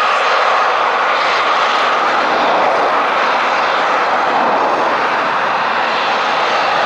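Eurofighter Typhoon's twin EJ200 jet engines running with a loud, steady roar that hardly rises or falls.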